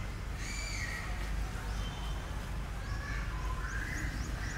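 Short high-pitched animal calls and chirps, a few about half a second in and more near the end as a quick run of short rising chirps, over a steady low rumble.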